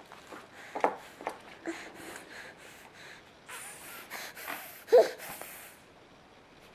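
A baby's snuffly breathing, snorts and mouth noises close to the microphone, with a short vocal sound, the loudest, about five seconds in.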